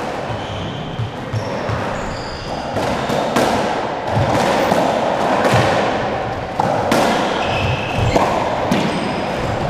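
Squash rally: the ball struck by rackets and smacking off the walls, giving irregular sharp hits with a short echo every second or two. Short squeaks of shoes on the wooden court floor come between the hits.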